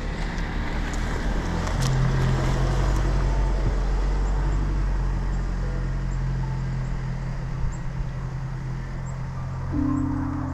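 A steady, running motor hum with a broad noise, like a vehicle engine driving; a higher hum comes in near the end.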